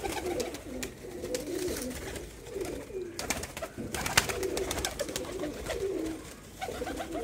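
A loft full of domestic pigeons cooing, many birds calling over one another in short, overlapping coos, with a few sharp wing flaps among them.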